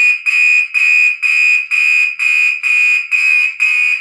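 Gentex SHG fire alarm horn sounding loudly in march time, a pulsed electronic tone about twice a second. It is set to march time because a wiring fault left its continuous tone not working.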